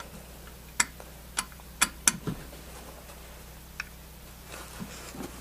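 A few sharp clicks and taps of a metal screwdriver and the aluminum manifold being handled on a tabletop: four quick clicks in the first two seconds, then one lighter click a couple of seconds later.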